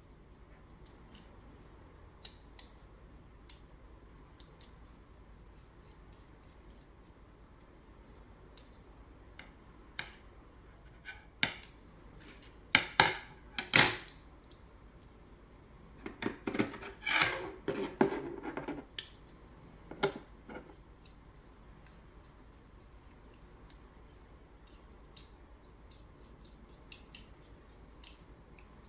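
Small screws and frame parts clicking, tapping and scraping as a brace is screwed onto the frame by hand. A run of sharp clicks comes around the middle, followed by a few seconds of scraping and rattling, with scattered lighter ticks.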